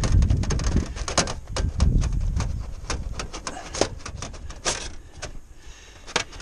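Wind buffeting the microphone with a low rumble that eases after about three seconds, over a rapid, irregular run of sharp clicks and crinkles from thin sheet-metal flashing being pressed and bent by gloved hands around a round vent opening.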